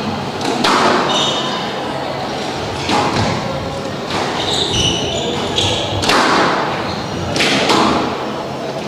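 Squash ball cracking off rackets and the court walls during a rally, sharp hits every second or two that echo in the hall. Sneaker soles squeak on the wooden floor between shots.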